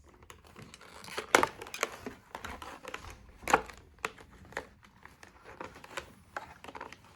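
Plastic and cardboard toy packaging being cut open and handled: irregular crinkling and crackling with sharp clicks, the loudest about a second and a half in and again about three and a half seconds in.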